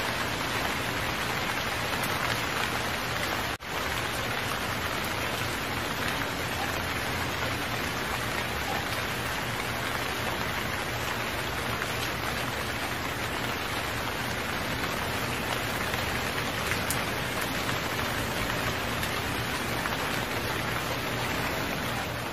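Steady, heavy rainfall: an even hiss of rain falling on surfaces, with one brief dropout about three and a half seconds in.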